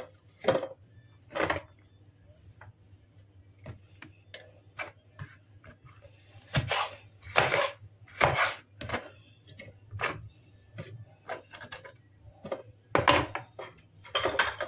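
Kitchen knife slicing a kapia pepper on a wooden cutting board: irregular knocks of the blade on the wood. Clatter comes from the pepper pieces being dropped into a plastic food-processor bowl.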